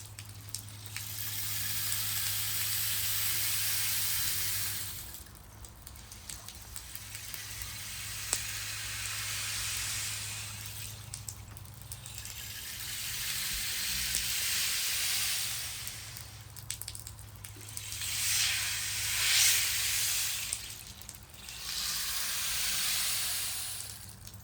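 A rushing, wave-like hiss that swells and fades in surges about every five to six seconds, over a steady low hum.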